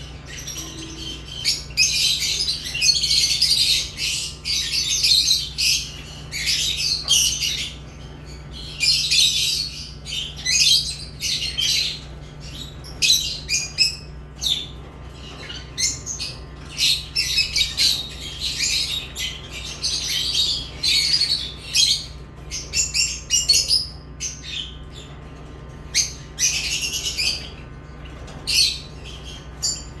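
Pet lovebirds chirping and squawking, a busy run of shrill, rapid calls that come in bursts and short breaks, over a steady low hum.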